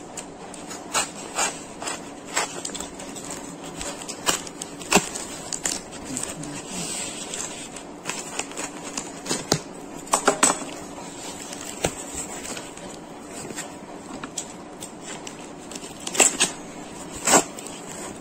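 Paper packaging being handled and unwrapped: rustling and crinkling with scattered sharp crackles and taps, the loudest a few seconds apart near the middle and end.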